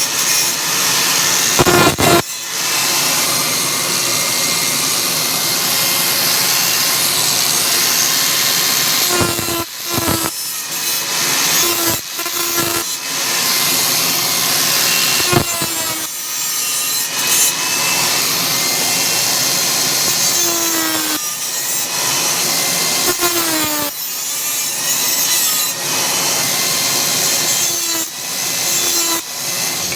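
Electric grinder working steel, running with a continuous harsh grinding sound. Its motor pitch sags a few times as it is loaded, and there are a few brief breaks.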